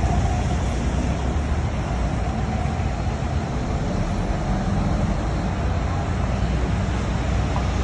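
Street traffic: a steady rumble of cars and a city bus going past.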